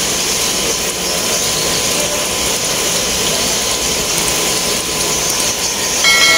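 Steady rushing hiss of aquarium pumps and circulating water in koi and goldfish tanks. A short pitched tone starts right at the end.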